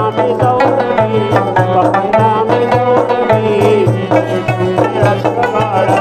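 Pashto folk instrumental: a plucked rabab and harmonium carry a wavering melody over a quick, steady frame-drum beat, about four strokes a second.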